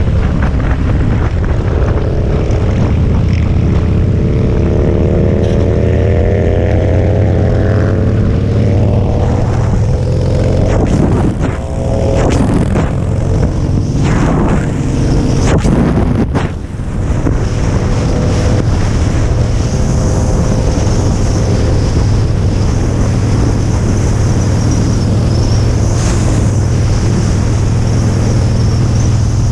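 Cruiser motorcycle engine running at road speed, its pitch rising over the first several seconds as the bike accelerates, with wind noise over the microphone. Around the middle another motorcycle runs close alongside.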